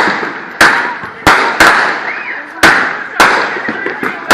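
Fireworks going off: a rapid series of sharp bangs, about seven in four seconds, each dying away in a fading echo.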